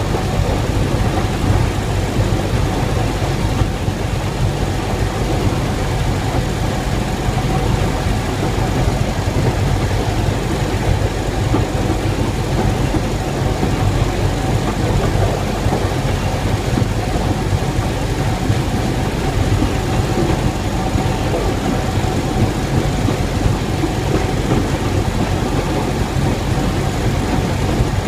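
Replica NZR Model T Ford railcar under way on the rails, heard from inside its cab: a steady, unbroken engine and running noise with a faint constant whine.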